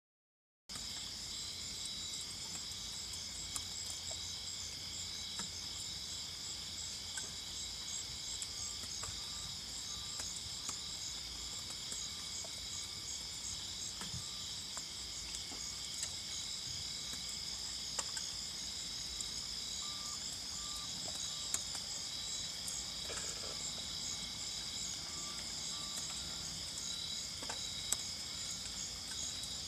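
Steady chorus of night insects, with pulsing high trills. Faint runs of short beeps come and go through it, over a low, steady rushing sound.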